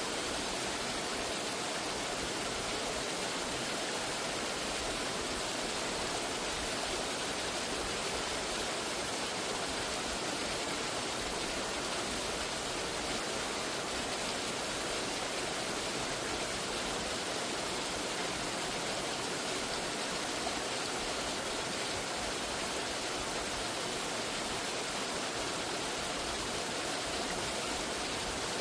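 Waterfall: a steady, even rush of falling water that does not let up.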